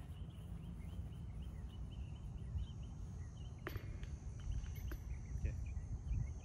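A single sharp clank, like a putted disc hitting a disc golf basket, about three and a half seconds in, with a couple of faint clicks a second later. Under it are a steady low wind rumble on the microphone and small birds chirping.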